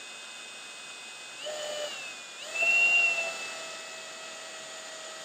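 Power drill driving a cage-mounted countersink cutter into a screw hole in an aluminium wing spar: a short run about a second and a half in whose whine dips in pitch, then a louder run from about midway that settles into a steady whine. A steady hiss sits under it.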